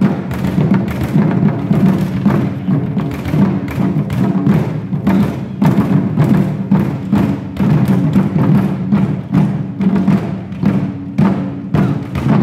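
Chinese drum ensemble: several players striking barrel drums with sticks in a fast, steady, driving rhythm.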